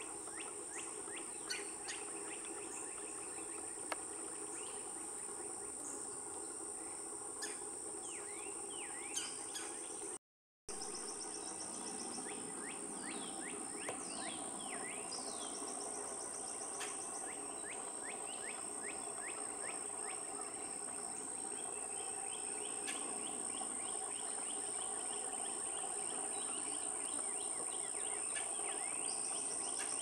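Woodland ambience: a steady high-pitched insect drone with many songbird chirps and quick down-slurred calls over it. The sound cuts out completely for a moment about a third of the way in.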